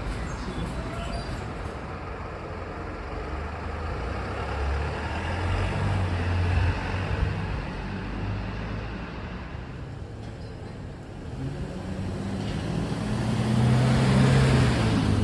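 Road traffic: motor vehicles running and passing, a heavy vehicle swelling to the loudest point near the end.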